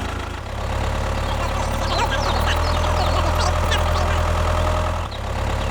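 Steady low engine drone of an idling heavy vehicle, coming in about half a second in and cutting off sharply near the end.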